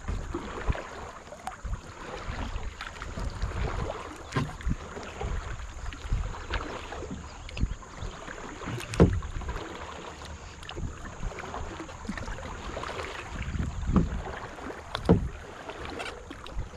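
Kayak paddle strokes splashing and dripping in shallow river water, with scattered knocks, the loudest a little past halfway and two more near the end.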